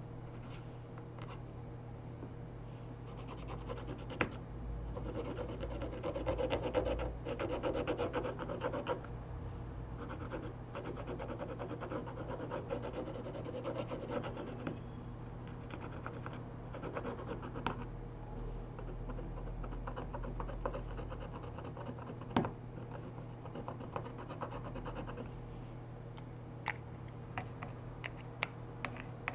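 Small repair tools scratching and rubbing against a smartphone's frame, in uneven strokes that are busiest in the first half, with a few sharp clicks of tool on plastic or metal.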